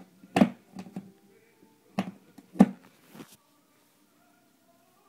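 A cat's paws batting and thumping at the inside of a cardboard box: about five sharp taps in the first three seconds, the loudest a little past halfway.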